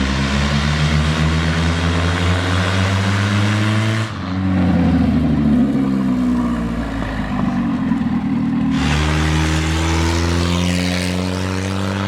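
Ford Tempo's four-cylinder engine and loud exhaust pulling under acceleration, the pitch climbing steadily; about four seconds in it breaks off into a rougher stretch, then pulls and climbs again from about nine seconds. The exhaust is pretty loud but not harsh.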